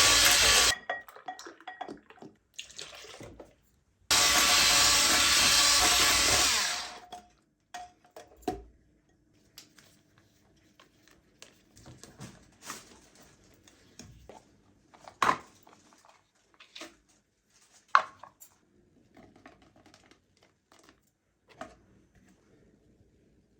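A small electric motor runs loudly in two bursts, the first cutting off just under a second in and the second lasting about three seconds, ending around seven seconds in. After that come light clicks and knocks.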